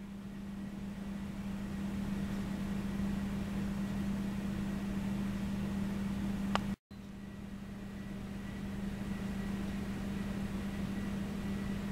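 A steady low mechanical hum, like an appliance or fan motor, with one constant tone over a faint hiss. A click and a brief dropout about seven seconds in break it before it resumes unchanged.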